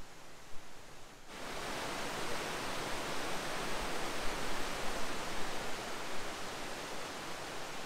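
White-water waterfall rushing over rock ledges below a dam's spillway gates: a steady, even rush of water that cuts in suddenly about a second in, after a quieter start.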